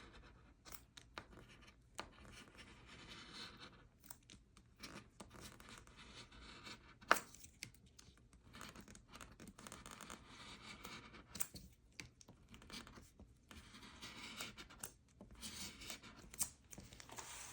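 Faint scraping of a scratch-off lottery ticket's coating being rubbed off in short strokes with brief pauses, and a sharp tap about seven seconds in.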